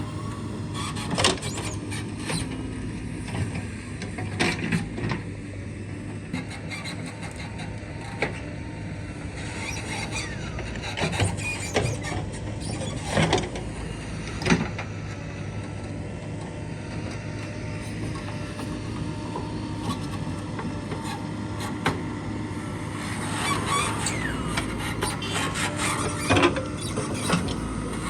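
Diesel earth-moving machinery running steadily at a soil-loading site, with repeated metal clanks and knocks and occasional squeaks from the working buckets and linkages.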